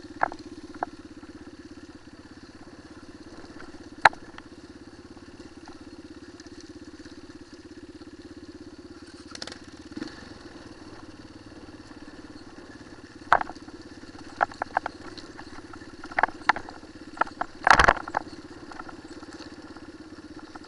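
Single-cylinder enduro motorcycle engine running steadily at low revs on a rocky trail, with scattered sharp knocks and clatters as the bike jolts over stones, coming thicker and louder in the last third.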